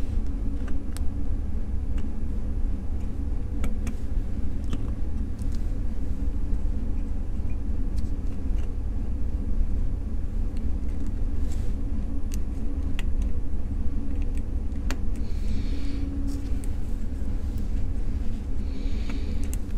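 A steady low rumble with a faint hum under it, and scattered light clicks as a digital watch module is pressed into its plastic case.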